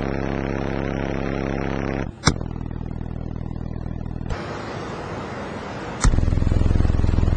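Sound Splinter RL-p car subwoofers playing sustained deep bass tones inside the car, loud enough to blow hair about. A sharp click about two seconds in, and a louder, deeper bass note starts about six seconds in.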